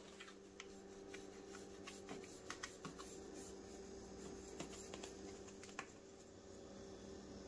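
Knife cutting through the crisp baked crust of a round Yemeni tea bread in a metal pan: faint scratchy cutting with scattered light clicks, a few close together a little past the middle, over a low steady hum.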